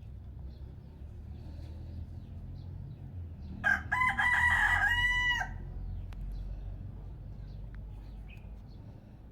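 A rooster crowing once, a single loud call of about two seconds that ends in a drawn-out falling note, about four seconds in. A low steady rumble and a few faint chirps run beneath it.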